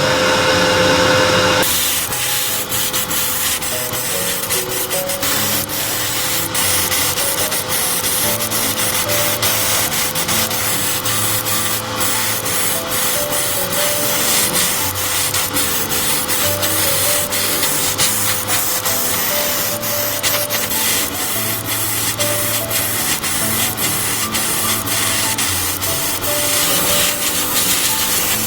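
Steady abrasive sanding, with a gritty rubbing noise and many small scratches and clicks, over background music.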